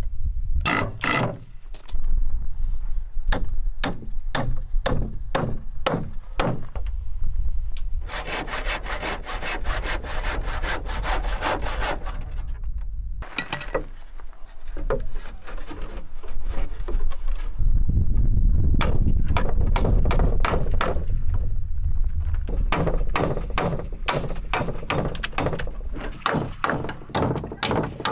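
Hand saw cutting through wooden boards in repeated back-and-forth strokes. The strokes come about two a second at first, faster for a few seconds about a third of the way in, stop briefly near the middle, then start again.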